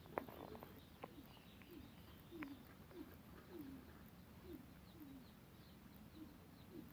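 Faint background bird calling: short, low, falling notes repeated about every half second. A few faint clicks sound among them.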